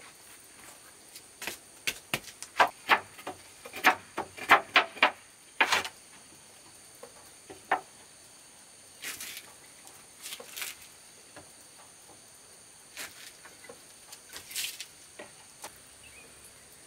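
A quick run of sharp knocks and clacks, then scattered ones further apart, over the steady high drone of insects.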